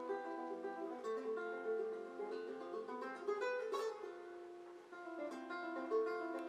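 Quiet background music of plucked guitar notes ringing and overlapping.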